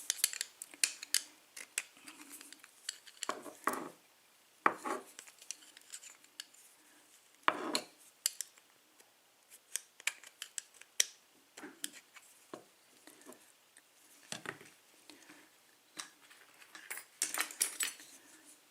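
Small metal clicks and scrapes, irregular and scattered, as a tool works at the retaining clip on the back of an EVVA euro cylinder lock to pry it off, with a quick run of clicks near the end.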